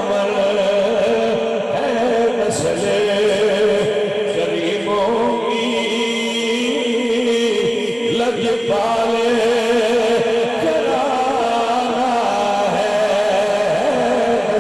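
A man chanting a devotional verse in the sung style of a Punjabi or Urdu religious recitation, holding long, wavering notes through a microphone.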